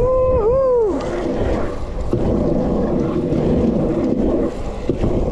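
Trick-scooter wheels rolling fast over wet asphalt, a steady rumble and hiss with wind buffeting the microphone. A short two-part vocal whoop in the first second.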